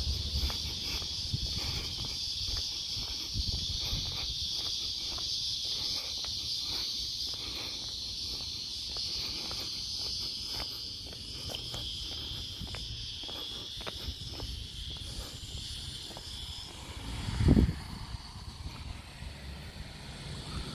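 Insects droning in a steady, high-pitched outdoor chorus, fading near the end, over footsteps and low wind rumble on the microphone. A brief loud whoosh comes about three-quarters of the way through.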